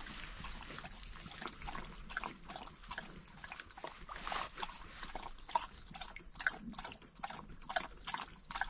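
Dog lapping water from the pond, a long run of quick, irregular wet laps.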